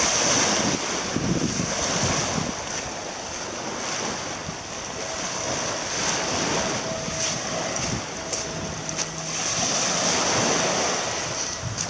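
Small waves breaking and washing up the sand beach over floating pumice grit. The surf rushes loudest at the start, eases off in the middle and swells again near the end.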